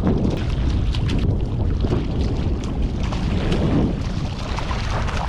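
Strong wind buffeting a GoPro's built-in microphone, a dense low rumble, with small water splashes and clicks over it.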